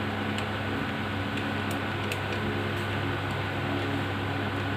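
Steady background hum, like a fan running, with a few faint small clicks.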